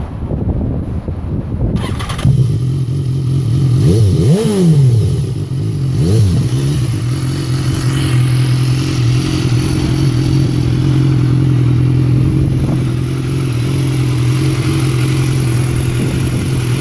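BMW motorcycle engine idling, blipped twice about four and six seconds in, revs rising and falling back quickly each time, then settling to a steady idle.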